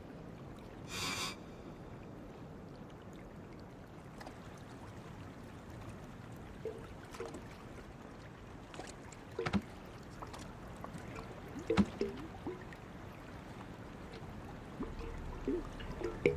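Quiet water sloshing and lapping against a small life raft at sea, with a few scattered knocks and creaks, and a brief hiss about a second in.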